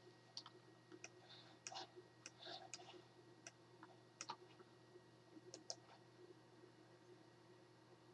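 Faint, irregular clicks of a computer mouse, a dozen or so scattered through, over a low steady hum.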